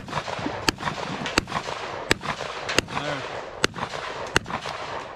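Seven pistol shots fired one after another at an even, unhurried pace, about one every three-quarters of a second, each a single sharp crack. The pistol is a Gen 5 with a ported target barrel.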